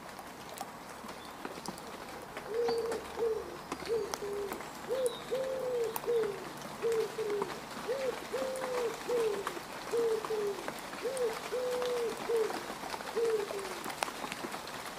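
Rain falling on mud, a steady patter with scattered drop clicks. Over it a bird calls in repeated low, falling notes, grouped in short phrases of two or three, from about two seconds in to near the end.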